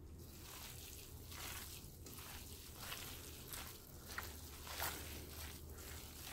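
Gloved hands squeezing and tossing flaked cooked striped bass with rice powder in a ceramic bowl: faint, soft, repeated squishing and rustling strokes, with a few light clicks against the bowl in the middle.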